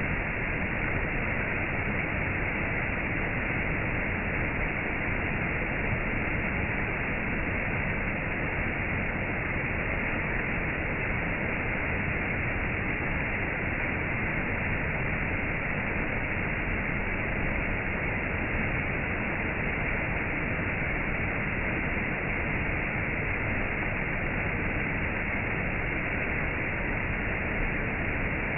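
Steady rushing water, an even, unbroken noise with no single splashes or calls standing out.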